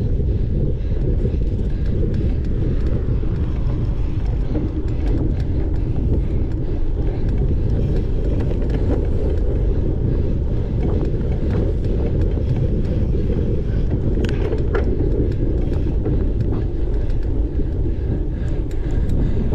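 Wind rushing over the microphone of a bike-mounted camera on a cyclocross bike ridden at speed, a steady low rumble, with occasional short clicks and rattles from the bike on the rough course.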